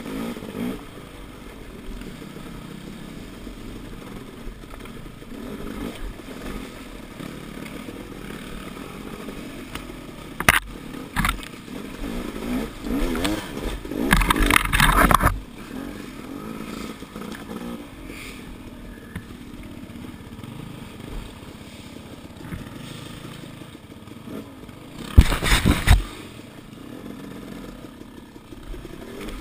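Single-cylinder KTM enduro dirt bike running at low speed over rough creek-bed and woods trail. There are a few loud bursts, a short one about a third of the way in, a longer one around the middle and another near the end.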